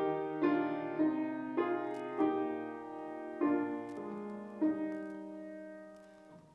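Piano playing the slow chordal introduction to a hymn, each chord struck and left to ring, the last one fading away near the end.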